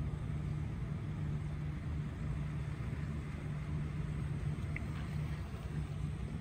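Steady low mechanical rumble, like an engine or machinery running nearby.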